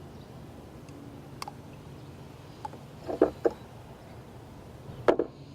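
A few short clicks and knocks from small thermostat-kit parts being handled and fitted together by hand: a faint one early, a quick pair past the middle and a louder one near the end, over a steady low hum.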